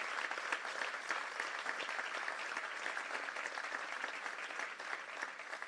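Audience applauding, a dense patter of many hand claps that slowly thins out near the end.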